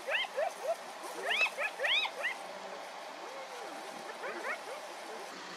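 Animal calls: short, arching chirps that rise and fall in pitch, coming in quick clusters through the first couple of seconds and again about four seconds in, over a steady background hiss.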